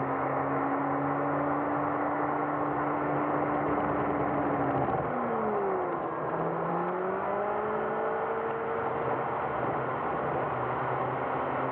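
A car's engine and road noise heard from inside the cabin, played back at triple speed: a steady hum over a hiss. About five seconds in the engine note drops as the car slows, then climbs again as it pulls away.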